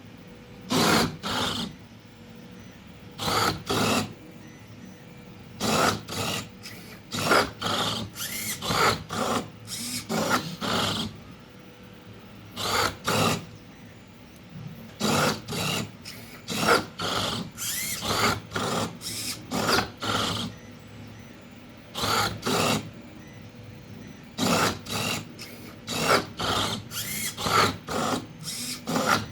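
Servo motors of a 3D-printed Rubik's cube solving robot whirring in short bursts, often two or more in quick succession, as its arms grip and turn the cube.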